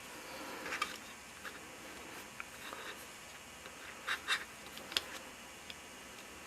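A few soft clicks of the push buttons on a DF Robot LCD keypad shield being pressed to step values up and down: one about a second in, a pair near four seconds and a sharper click just after, over a faint steady hiss.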